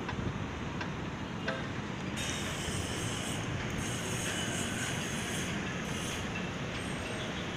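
Steady distant city traffic rumble heard from high above the streets, with faint high whines from about two seconds in.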